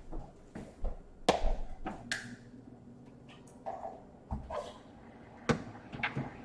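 Small laptop parts being handled on a workbench: a few sharp clicks and taps of plastic and metal pieces, with soft rustling handling in between.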